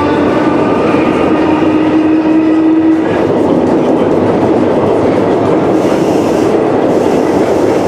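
Sprague-Thomson metro car running on the rails, heard from inside the passenger car: a loud, steady rumble with a whining tone in several pitches that stops about three seconds in.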